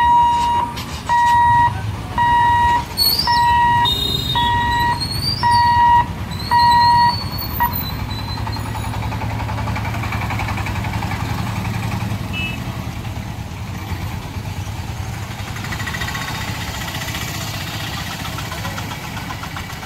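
Level-crossing warning beeper giving about eight evenly spaced high beeps, roughly one a second, as the boom barrier opens after the train has passed, with birds chirping. Then the beeping stops and the low running of motor vehicle engines takes over as motorcycles, a motorized cart and auto-rickshaws cross the tracks.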